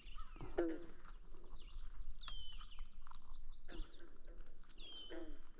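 Wild birds calling: a high whistled note that drops and then levels off, repeated about every two and a half seconds, among lower, harsher calls.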